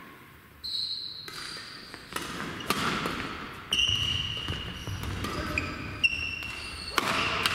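Badminton doubles rally: several sharp racket hits on the shuttlecock at irregular spacing, mixed with high squeaks of court shoes on the hall floor.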